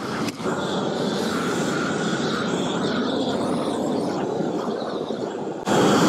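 Hose-fed propane roofing torch burning with a steady hiss of flame, turned up louder near the end. It is heating the old coating on the torch-down roof so that it bubbles up and can be scraped off.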